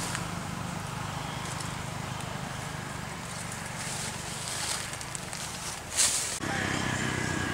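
A low, steady hum, with a brief rustling noise about six seconds in.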